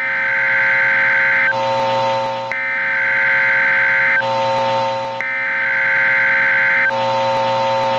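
Loud electronic buzzing alarm tone that alternates, about three times over, between a bright higher chord lasting about a second and a half and a lower chord with a hiss of static lasting about a second.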